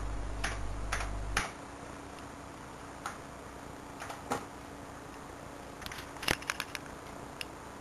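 Scattered light clicks, several close together about six seconds in, over a faint steady hiss. A low hum cuts off about a second and a half in.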